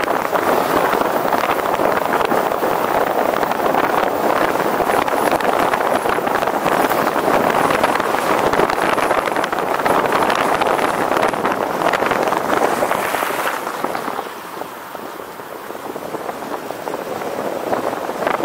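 Steady rushing wind and road noise while riding, easing for a couple of seconds near the end and then building again.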